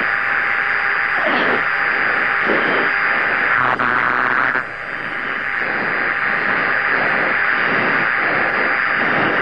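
Steady hiss and static of a fighter's cockpit radio and intercom channel, with a faint steady tone under it. There is a click a little under four seconds in, and just after it the hiss dips briefly.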